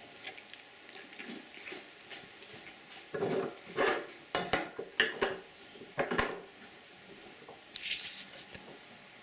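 Irregular clanks and rattles of a goat in a head-gate stand working at a metal feed pan, busiest from about three to six seconds in, with a short hiss near the end.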